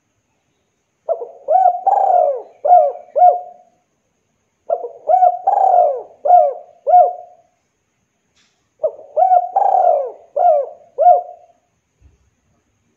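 Spotted dove (Javan derkuku) cooing: three phrases of about five coos each, a second or so apart.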